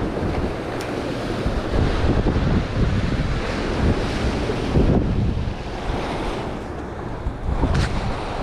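Ocean surf breaking and washing against jetty rocks, with strong wind buffeting the microphone.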